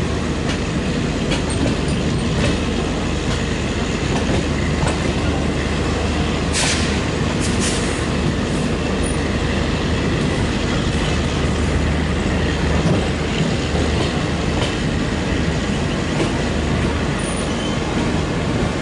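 Express train coaches rolling slowly over the track: a steady rumble and hum with scattered clicks. A short hiss comes about six and a half seconds in, and two briefer ones follow about a second later.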